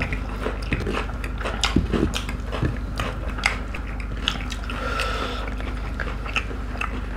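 Close-miked eating: irregular wet chewing, smacks and mouth clicks from people eating curry, rice and corn by hand, over a steady low hum.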